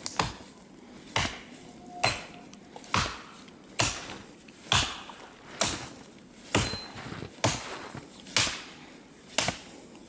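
Hatchet chopping through brushwood branches: a sharp chop about once a second, eleven strokes in all.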